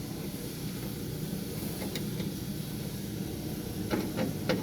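Small sharp clicks and taps of fasteners and a plastic interior door handle being handled while screws are threaded in by hand: one click about two seconds in and three near the end, over a steady low background rumble.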